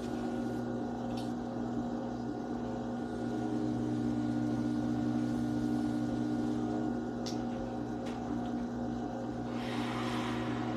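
Electric potter's wheel motor humming steadily as the wheel spins. There are a few faint ticks, and a brief hiss about ten seconds in.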